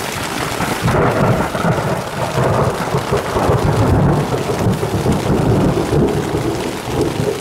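Thunder rumbling close by: a low roll that builds about a second in and rolls on for several seconds, over steady heavy rain.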